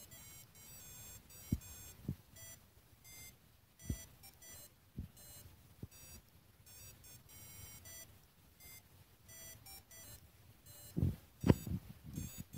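A small Grove speaker module on an STM32 pet feeder sounding its scheduled feeding alarm as a string of short electronic beeps at changing pitches. A few dull knocks come in between, loudest near the end.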